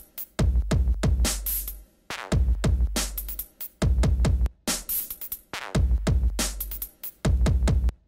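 Background electronic music with a steady drum-machine beat and deep bass, the bass dropping out briefly every couple of seconds.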